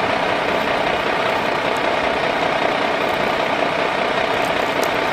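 Motor of a radio-controlled model excavator or dump truck running steadily with a constant buzzing hum.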